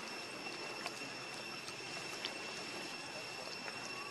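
Outdoor ambience: a steady high-pitched drone over a low background hiss, with a few faint clicks.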